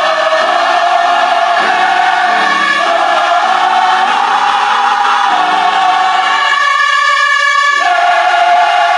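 Choir singing gospel music in long held chords that change every second or so.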